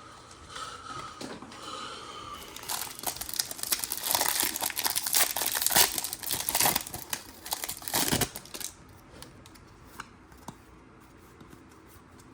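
Foil trading-card pack wrapper crinkling and being torn open: a dense run of crackling from about three seconds in until about eight seconds in, followed by a few soft clicks.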